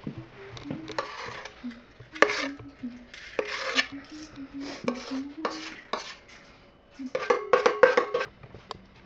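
A spoon clinking and scraping against a mixing bowl and metal cupcake tin as cake batter is spooned out, with a cluster of quick clattering strikes near the end.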